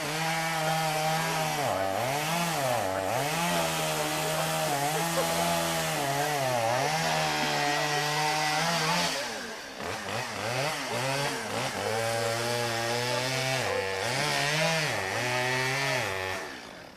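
Chainsaw running at high speed, its pitch dipping and recovering several times as it cuts into wood. It eases off about nine seconds in, speeds up again, and stops near the end.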